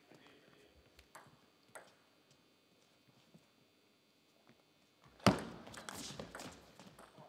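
Table tennis ball clicking a couple of times before a serve. About five seconds in, a loud sharp hit opens a quick point, with about a second and a half of rapid ball and bat clicks.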